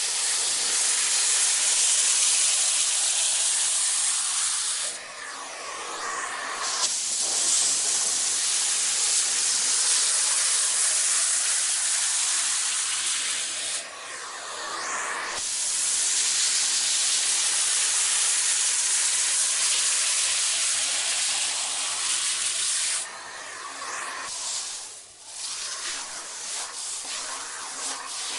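Vacuum cleaner running: a steady airy hiss of suction and motor. It dips twice, around five and fourteen seconds in, with a sliding change in pitch, and about twenty-three seconds in the high hiss drops away, leaving a quieter, uneven sound.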